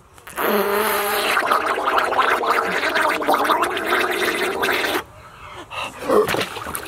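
A man voicing and blowing bubbles with his mouth in lake water, a steady gurgle that starts about half a second in and cuts off sharply about five seconds in. It is a mock fish-calling noise.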